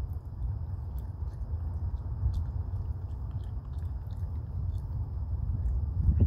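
Raccoon chewing and crunching pieces of dry food, over a steady low rumble, with a louder knock near the end.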